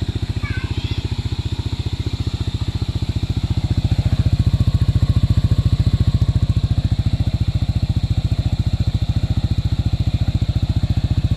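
Yamaha NMAX scooter's single-cylinder engine running through a newly fitted Apido aftermarket exhaust pipe, with a rapid, even exhaust beat. It gets louder about four seconds in, then holds steady.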